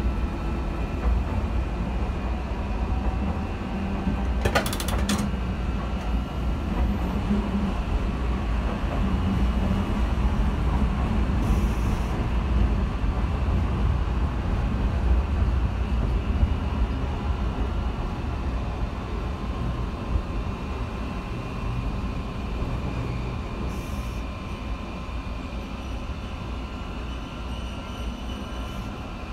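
Okayama Electric Tramway streetcar running along street track, heard from inside the cab: a steady low rumble of wheels on rail with a faint whine above it. A single sharp clack comes about five seconds in, and the rumble grows quieter toward the end.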